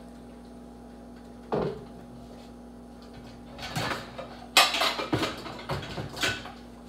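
Kitchen handling sounds: a single knock about a second and a half in, then a run of clatters and rustling from about three and a half seconds to six and a half, the loudest a sharp bang just before five seconds. A faint steady appliance hum underneath.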